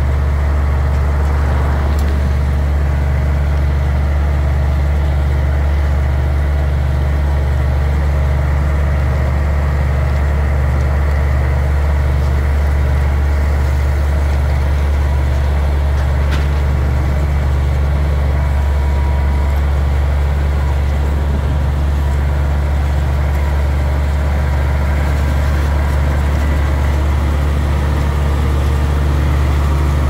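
Heavy diesel engine of an earthmoving machine running steadily, with an even, regular low pulsing.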